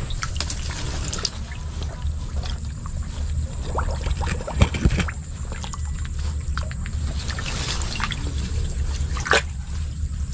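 Hands splashing and sloshing in shallow muddy water while groping underwater for fish, with a few sharper splashes about four and a half and nine seconds in, over a steady low rumble.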